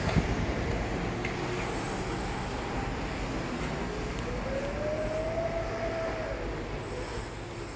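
Steady outdoor traffic rumble with a thump at the start. About three seconds in, a passing vehicle's engine note rises and then falls back in pitch over about four seconds.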